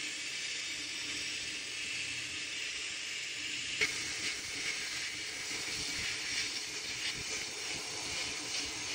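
Sandblast gun in a blast cabinet hissing steadily as abrasive strips rust and old paint off a rusted metal plate, with one short sharp tick about four seconds in.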